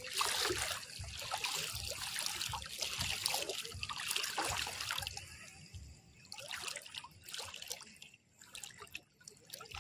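Small waves lapping and trickling at the water's edge in irregular sloshes, fading down after about five seconds.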